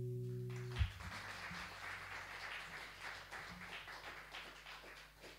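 A final acoustic guitar chord rings and is damped suddenly under a second in, then a small audience applauds for about four seconds, thinning out toward the end.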